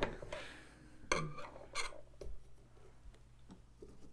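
Knife cutting and scraping into a pumpkin: two short scraping strokes about one and nearly two seconds in, then faint small clicks and rubs.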